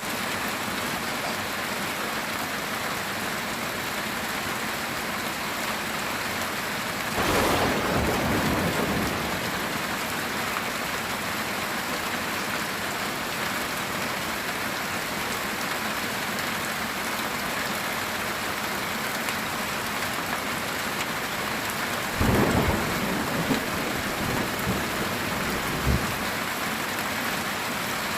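Heavy rain pattering steadily on a metal tin roof, with thunder rumbling twice: once about a quarter of the way in, and again near the end followed by a few sharper cracks.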